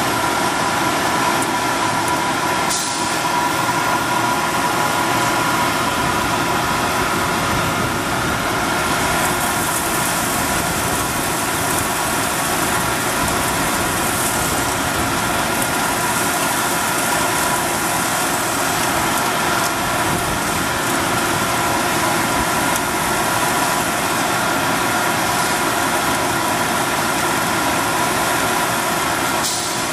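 An engine running steadily at idle, with a steady high whine over it.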